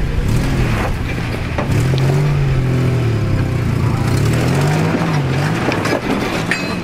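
Toyota Tacoma pickup's engine revving up and down as it crawls uphill over rocks, its note rising and falling several times, with a few sharp clicks of rock under the tyres.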